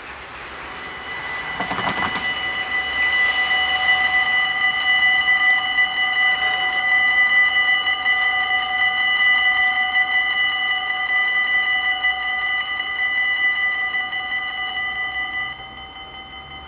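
Dutch level-crossing warning bells ringing steadily as the half-barriers lower, warning of an approaching train. The ringing swells in over the first few seconds and stops about 15 seconds in, once the barriers are fully down.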